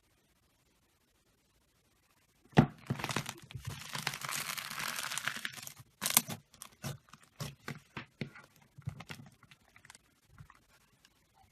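Slime being pressed and squeezed, crackling and popping. It starts sharply about two and a half seconds in, crackles densely for about three seconds, then gives scattered small pops and clicks.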